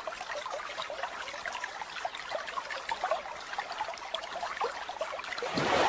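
Water rushing down a whirlpool vortex in a pond: a steady rush with many small bubbling gurgles.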